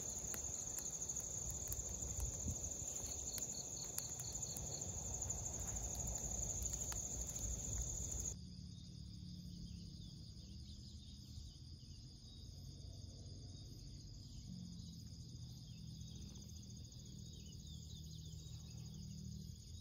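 Night chorus of crickets and other insects, a steady high chirping with some faint clicks. About eight seconds in it changes abruptly to a quieter, slightly different insect chorus.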